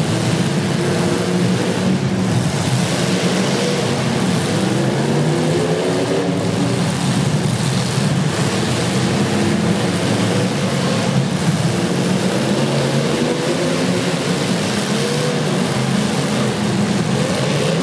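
Several demolition derby car engines running and revving at once, their pitches rising and falling over one another, under a steady noisy haze.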